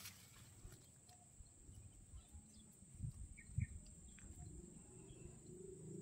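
Faint outdoor ambience: a steady, high-pitched insect drone with scattered faint ticks, and two soft low thumps about three and three and a half seconds in.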